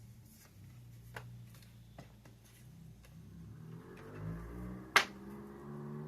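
A few light clicks and taps, with one sharper click about five seconds in, and a low hum in the second half.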